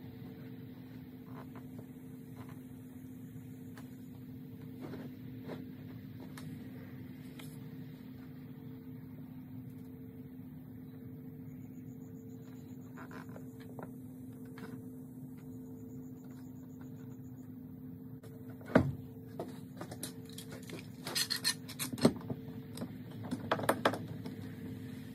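A steady low hum runs throughout. Near the end comes a sharp knock, then a run of clacks and rattles as the wooden strips and bar clamps are handled while the board is glued up and clamped.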